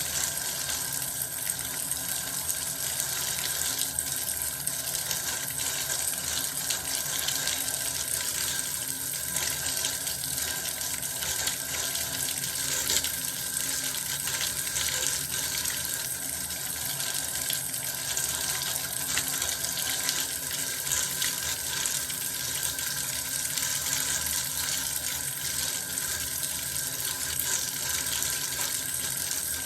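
Water running steadily from a bath tap, an unbroken rush of falling water.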